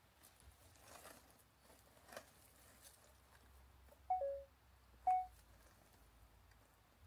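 Faint rustling of dry twigs and leaves as a cat moves through brush. About four seconds in come two short pure-toned beeps about a second apart, the first dropping in pitch partway through, the second brief and level.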